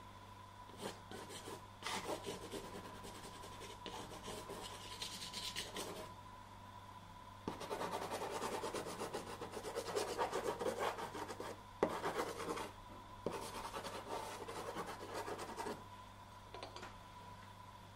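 Soft pastel stick scratching and rubbing across textured pastel paper in quick back-and-forth strokes. The dry rasping comes in three spells of a few seconds each, with short breaks between them.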